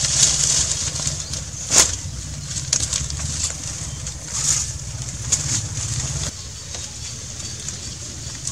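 Rustling of dry leaves and camouflage clothing, with scattered handling clicks and one sharp click about two seconds in, over a low rumble that stops abruptly about six seconds in.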